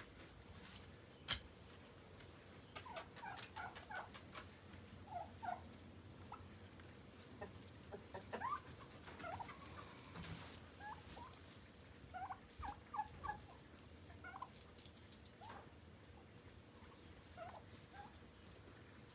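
Domestic turkeys calling, faint, in scattered clusters of quick short calls that come off and on. A single sharp click sounds about a second in.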